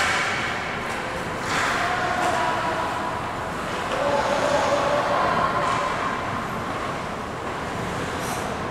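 Ice hockey play on an indoor rink: skate blades scraping and carving on the ice, with sharper scrapes at the start and about a second and a half in, over the steady hum of the rink hall.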